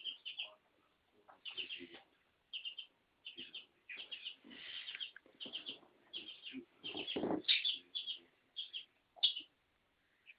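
Chicken calling in quick, short, repeated squawks and clucks, with a louder, lower burst of sound about seven seconds in.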